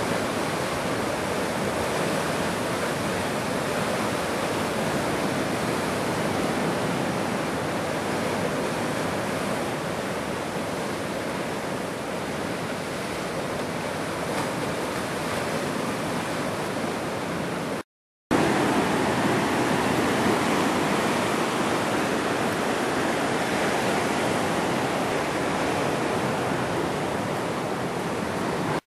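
Ocean surf breaking and washing over rocks, a steady rushing noise. It cuts out briefly about two-thirds of the way through, then comes back slightly louder.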